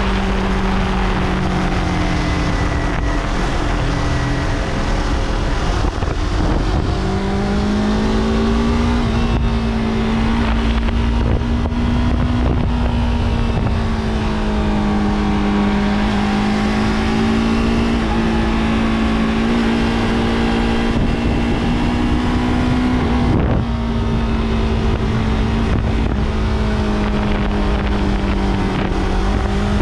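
Yamaha R3's 321 cc parallel-twin engine running steadily at moderate revs on the move. Its pitch climbs a few seconds in, then about three-quarters of the way through there is a brief break and the engine note settles lower.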